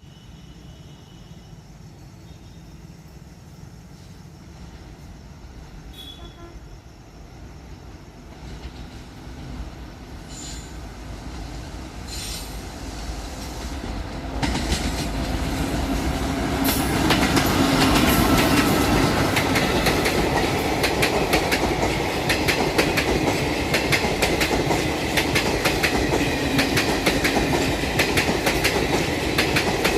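Passenger train hauled by a WAP4 electric locomotive approaching, its rumble growing louder over about fifteen seconds, then passing close with a rapid clickety-clack of wheels over the rail joints.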